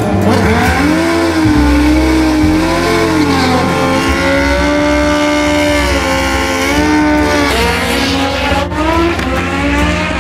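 Drag-racing motorcycle engines revving hard during burnouts at the start line, rear tyres spinning; the pitch rises and falls several times, then climbs steadily near the end.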